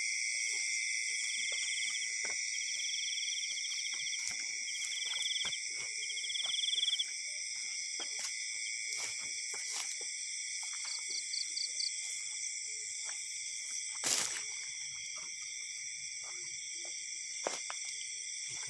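Night insect chorus: crickets and other insects trilling steadily in several high pitches, with a fast pulsing trill repeating over the first seven seconds and again briefly near the middle. Scattered soft clicks and rustles sit underneath, with one sharper knock about two-thirds of the way through.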